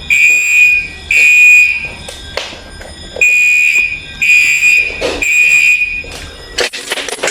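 Electronic alarm clock beeping: five high, steady beeps, each under a second long, about once a second, with a longer pause after the second beep. Sharp clicks and knocks fall between the beeps, several together near the end.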